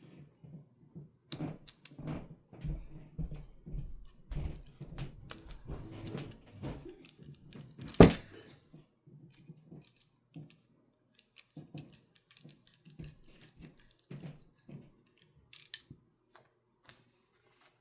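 Hard plastic quick-detach mount and belt-loop parts handled and fitted together with their screws: irregular clicks, taps and rattles, with one loud sharp snap about eight seconds in.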